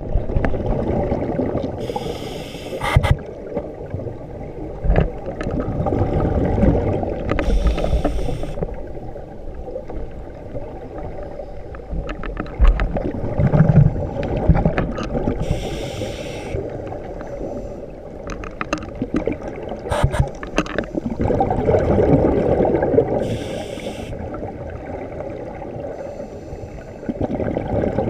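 Scuba divers breathing through regulators, heard underwater: a steady muffled rumble with a hissing rush of exhaled bubbles about four times, several seconds apart.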